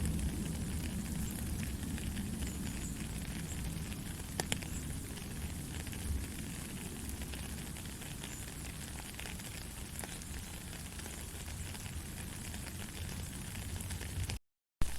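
Steady rain falling, a continuous hiss over a low rumble, with scattered ticks of individual drops. The sound drops out completely for a split second near the end.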